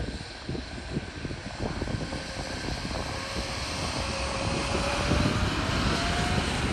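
Airbus A321neo's Pratt & Whitney geared turbofan engines spooling up for the takeoff roll. A whine climbs steadily in pitch over the second half while the jet noise grows louder.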